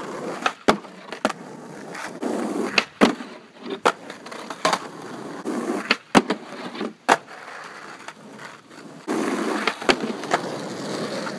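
Skateboard wheels rolling on asphalt, broken by repeated sharp clacks of the board: ollie pops and landings on and off a skate bench. Near the end the board slides along the top of the bench in a longer, louder scraping run.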